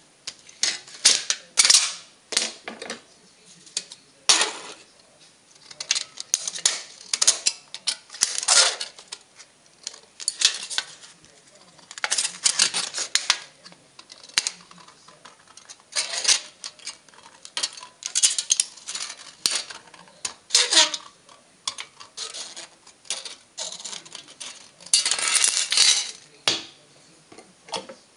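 Thin aluminium soda-can pieces being cut with scissors and handled on a table: irregular crinkling, clicking and rattling of the metal, coming in short clusters with brief pauses between them.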